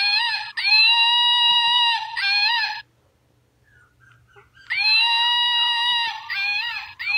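Recorded monkey calls played from an animal-sound toy: a run of loud, high-pitched calls, a pause of about two seconds, then the same calls again.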